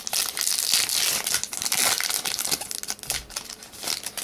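Foil trading-card pack wrapper crinkling loudly as it is torn open, dense for the first two seconds or so, then thinning to scattered crackles as the cards come out.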